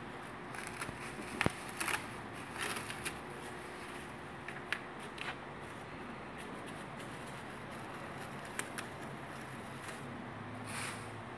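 Thin plastic masking sheet crinkling and masking tape being peeled back by hand from a freshly painted car's front end, in short irregular crackles. A faint steady hum runs underneath.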